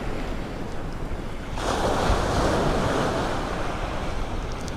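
Ocean surf breaking and washing up a sandy beach, mixed with wind buffeting the microphone. The rush of water grows louder about a second and a half in.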